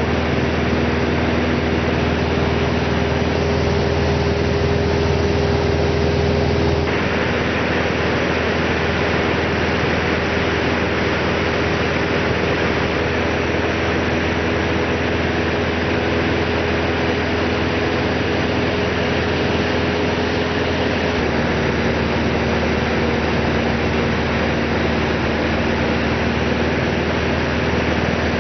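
Steady drone of a light airplane's engine and propeller, heard from inside the cabin, with a hum of several steady tones under a rushing noise. The tone shifts abruptly about seven seconds in and again about twenty-one seconds in.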